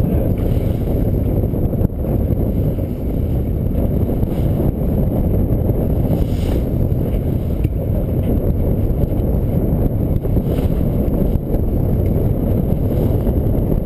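Steady, loud rumble of wind buffeting the microphone, over a trolling boat's motor and choppy water splashing against the hull.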